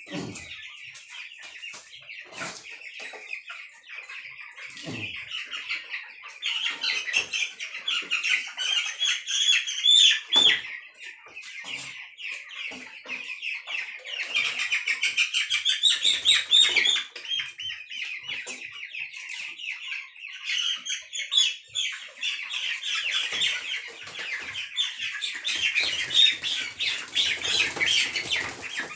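Many broiler chicks peeping at once: a dense chorus of high chirps that swells louder in several stretches, with a few short knocks in between.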